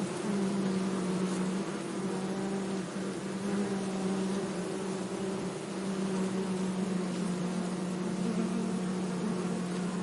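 Bee buzzing: a steady low hum whose pitch wavers slightly, breaking off briefly a few times.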